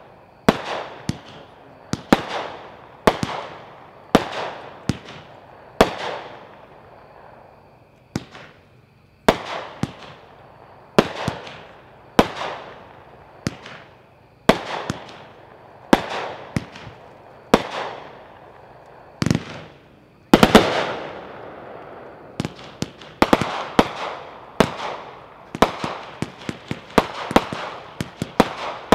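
Epic 'Space Force' 38-shot consumer firework cake firing: sharp reports about one a second, each trailing off in an echo. There is a short pause early on, a louder, longer burst about twenty seconds in, and a quicker run of reports near the end.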